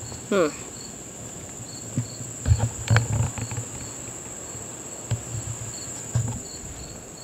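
Insects chirping: a steady high-pitched drone with a second insect chirping regularly about twice a second. Near the start there is a brief falling call, and a few thumps and clicks come through the unshielded mic, loudest about two and a half to three seconds in.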